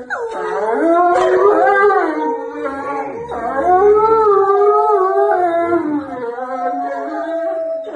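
A large wolf-like dog howling in long, wavering, drawn-out notes, with a small child howling along at the same time.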